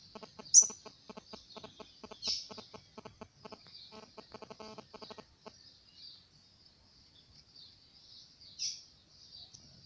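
Papa-capim seedeater singing: a run of high, quick twittering notes with a few loud, sharp notes about half a second in, two seconds in and near the end. Under it, for the first half, a lower pulsing call repeats about five times a second and then stops.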